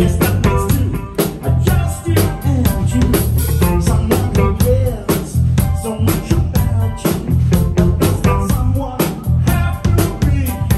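Pop band playing live on a club sound system: drum kit with a steady beat, bass, guitar and a sung vocal line.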